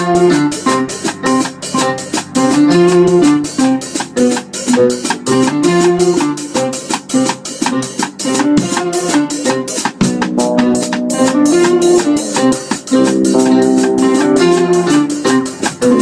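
A small band playing an instrumental piece: semi-hollow electric guitar, electric bass and a drum kit, with a steady quick ticking of cymbals running under the melody.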